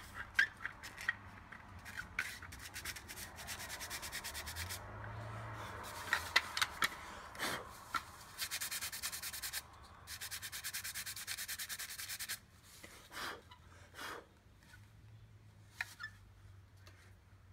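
Fingers rubbing and smoothing putty around the eye holes on a wooden duck decoy's head. The rubbing comes in runs of quick back-and-forth strokes, broken by a few light knocks against the decoy.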